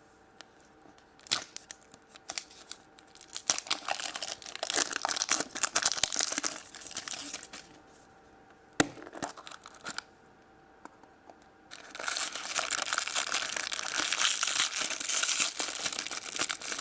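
Packaging of a Mickey Mouse Easter egg being torn and crinkled open by hand, in bursts: a few sharp clicks, a spell of crinkling, a pause, then steadier, louder crinkling and tearing over the last few seconds.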